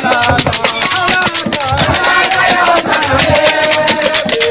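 Live street music: rattles or shakers shaken in a fast, even rhythm over a steady drum beat, with voices singing over it.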